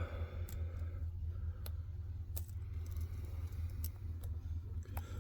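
Lock picks working inside a Ruko 600 padlock with barrel spool pins: a few small, sharp metallic clicks spaced about a second apart, over a steady low hum.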